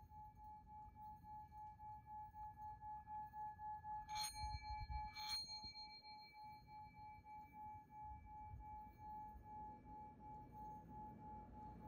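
Soft, sustained ringing tone like a singing bowl, its sound swelling and fading about twice a second. Two bright, chime-like strikes come about a second apart, around four seconds in.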